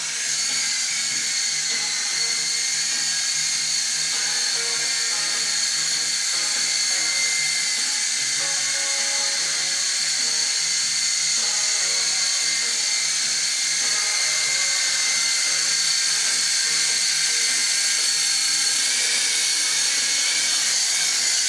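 Electric rotor motors of a SYMA S032 coaxial radio-controlled helicopter running with a steady, high-pitched whine. The whine starts at the very beginning and stays level in pitch.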